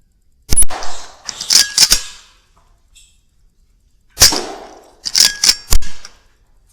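Two shots from a Weihrauch HW100 .22 pre-charged air rifle, about half a second in and again about four seconds in. Each shot is a sharp crack followed by a short rattle and, a second or so later, a few quick metallic clicks.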